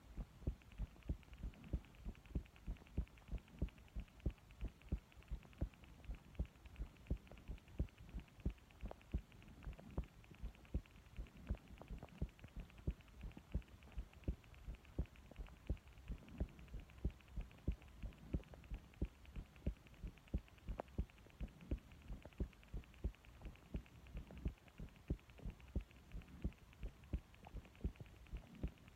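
A person's heartbeat picked up at the chest, a steady, even train of soft low beats over a faint hum.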